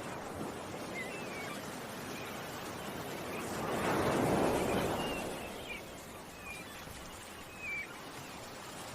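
Ocean waves washing in, one wave swelling up about halfway through and then fading, with small birds giving short repeated chirps over the surf.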